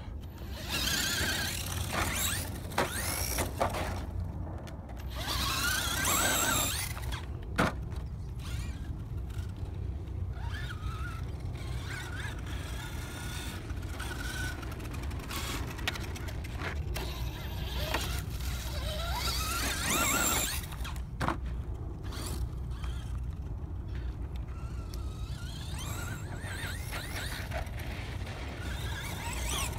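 Brushless electric motor and gears of a Traxxas Slash 2WD radio-control monster truck whining in several bursts of acceleration, the high-pitched whine rising and falling in pitch as the throttle is worked.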